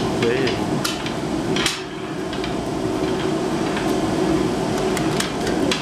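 Hammers striking a gamelan gong as it is hand-forged: irregular, sharp metal blows over a steady low ringing tone.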